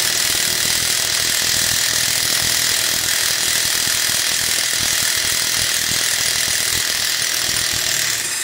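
Cordless impact wrench hammering steadily on a bus wheel's lug nut, working to break it loose, then cutting off abruptly at the end.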